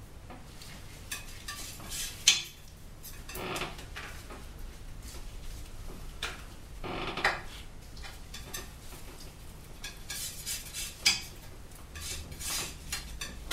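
Palette knife scraping and tapping against a palette as oil paint is mixed, in irregular strokes with a few sharp clicks.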